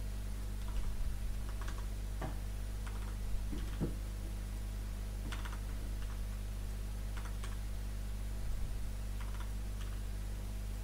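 Scattered soft clicks and short scratchy strokes, a few at a time and spaced irregularly, over a steady low hum: desk-top sounds of marker or pen work on paper.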